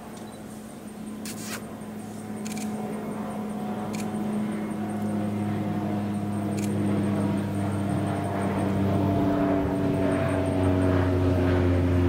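A distant engine droning with a steady low hum, growing steadily louder through the stretch. A few sharp clicks sound over it in the first several seconds.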